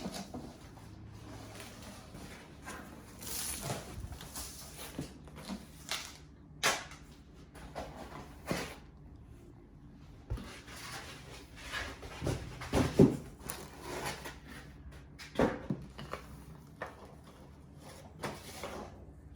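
Packaging being handled and unpacked: cardboard and plastic rustling with scattered knocks and thuds, the loudest a cluster of knocks about two-thirds of the way through.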